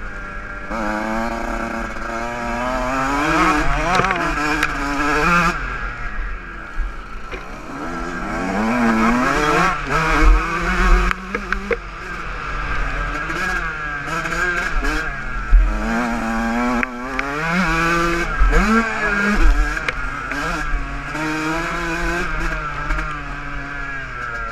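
Motocross dirt bike engine, heard from on board, revving up and dropping back again and again as it is ridden hard around the track, over a steady wind rumble on the microphone, with a few sharp knocks from the bumps.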